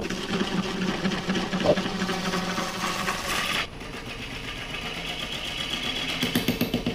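Bowl gouge cutting the inside of a spinning silver maple bowl on a Powermatic wood lathe: a dense, rapid chatter of the cut over the lathe's steady hum. The cut is heavier for about the first three and a half seconds, then eases to a lighter cut.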